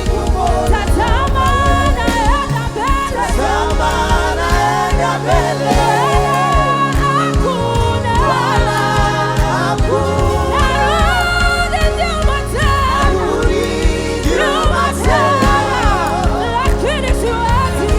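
Live gospel worship music: singers, with a choir's voices, over sustained bass and keyboard chords.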